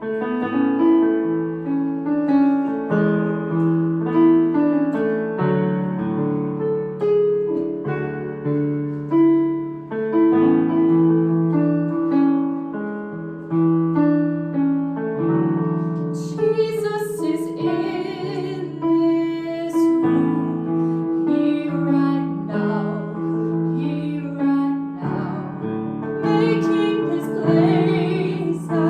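Slow piano music, a steady run of sustained notes and chords. A singing voice joins in twice in the second half.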